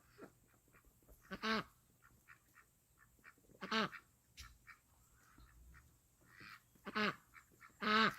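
Waterfowl calling: four loud, short honks about a second and a half in, near four seconds, around seven and around eight seconds, with a run of soft, short peeps in between.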